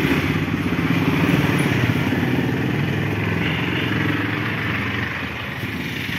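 A vehicle engine idling steadily, a low rumble of rapid firing pulses that eases slightly near the end.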